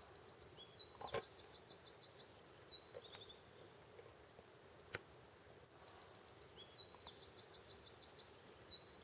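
A songbird singing the same short song twice, several seconds apart: a fast run of high repeated notes ending in a brief flourish, faint against the outdoor background. A single sharp click comes about halfway through.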